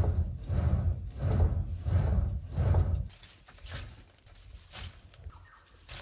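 Hand-worked clay pot bellows blowing air into a charcoal-fired clay furnace: a steady rhythm of deep puffs of air, about two a second, fanning the fire, that stops about three seconds in. A few faint clicks follow.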